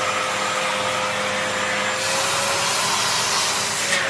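Vacuum cleaner running steadily, a rushing hiss of air over a constant motor whine. About halfway through the hiss turns brighter and louder for a couple of seconds, then eases back near the end.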